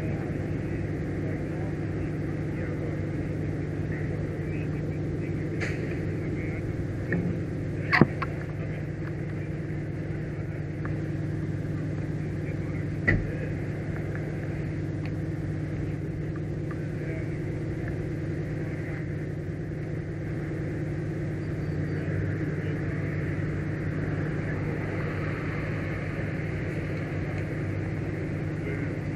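Large vehicle's engine idling steadily with a low hum, with two short sharp knocks about eight seconds in and again about five seconds later.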